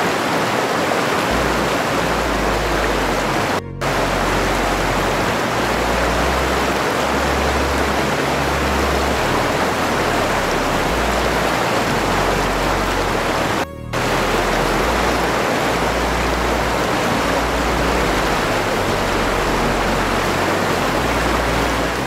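Waterfall rushing steadily, a dense even hiss of falling water, broken by two brief dropouts about four and fourteen seconds in.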